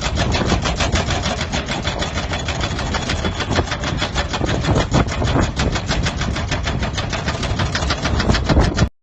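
Heavy machinery running with a fast, even knocking beat, about eight knocks a second, that cuts off abruptly near the end.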